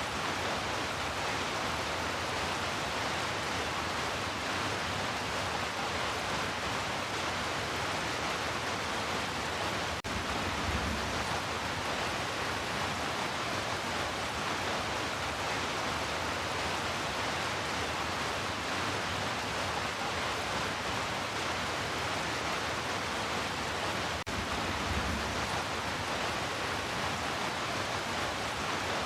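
Heavy rain falling in a steady, even hiss. Twice a brief low rumble comes in under it, about 10 and 24 seconds in.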